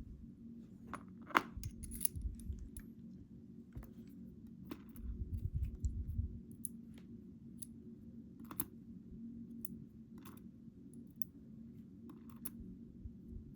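Scattered small metal clicks and taps of a pin-tumbler lock cylinder's parts being handled and fitted back together, with a few dull bumps, over a steady low hum.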